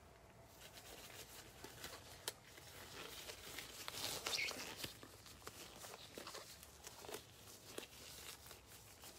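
Faint rustling with scattered light clicks, as of something being handled, busiest and loudest about four seconds in.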